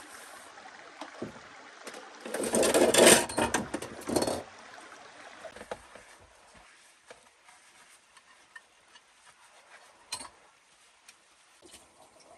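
Dishes being washed at the camp sink: a loud rushing noise for about two seconds, then quieter with a few light clicks and knocks.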